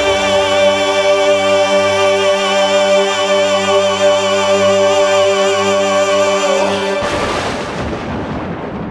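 Music: the closing held chord of a dramatic song, with singers and orchestra sustaining one chord and a voice wavering on top. About seven seconds in it ends with one loud hit that dies away.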